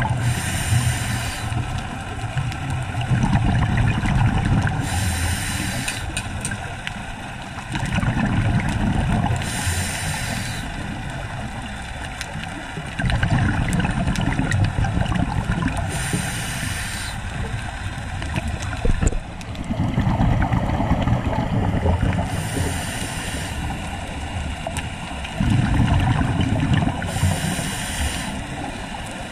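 Scuba diver breathing through a regulator underwater: a short hiss on each inhale, then a low rumble of exhaled bubbles. About six breaths, one every five seconds or so.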